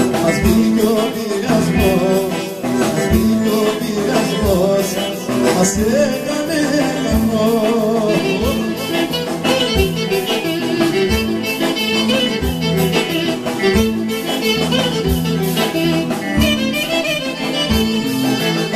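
Live band playing Greek dimotika folk music, the clarinet leading over electric guitar, keyboard and a steady drum beat.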